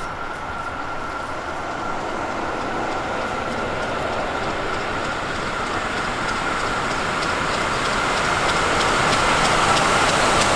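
A steam-hauled passenger train approaching on the rails, growing steadily louder, with a steady high tone over the running noise. Near the end, rhythmic clicking from the wheels over the rail joints sets in.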